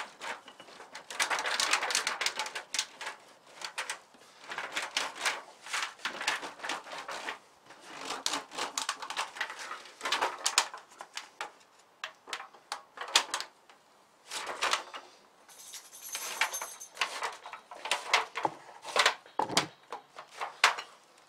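Thin aluminium foil oven liner crinkling in irregular spells as a wooden rolling pin is rolled along its folded seam and hands press the foil flat over the wire inside.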